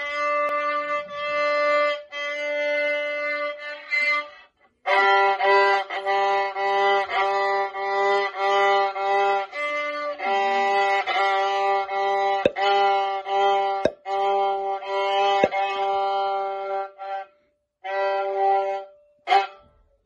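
Solo violin played by a first-cycle student, in mostly short repeated bow strokes on a few sustained pitches, with a brief pause about four and a half seconds in. A few sharp clicks sound over the playing in the middle.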